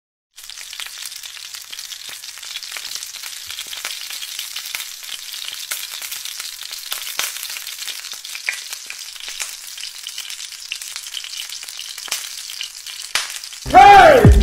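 Slices of ripe plantain frying in hot oil in a pan, a steady sizzle with many small pops and crackles. Just before the end a loud swooping tone cuts in as music starts.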